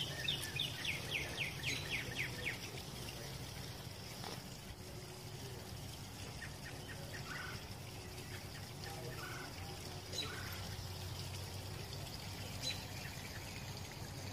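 Birds chirping: a quick run of high chirps at about five a second for the first two and a half seconds, then scattered fainter chirps over a low steady background hum.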